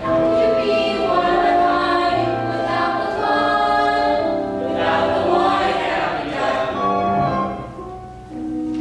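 A young stage cast singing a musical-theatre chorus number together, with held notes that change pitch from phrase to phrase. The singing drops away briefly near the end, then comes back.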